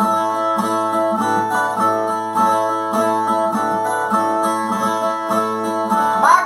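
Brazilian ten-string viola playing an instrumental interlude between sung verses of a repente, strummed and plucked in a steady pattern with the notes ringing on.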